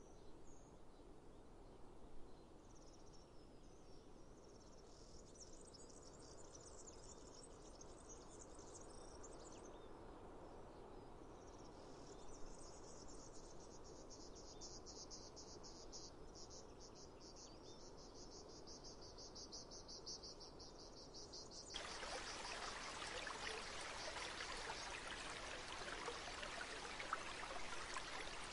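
Faint insects chirring in a high, rapidly pulsing trill over a soft background hush. About three quarters of the way through it switches abruptly to the steady rush of running water.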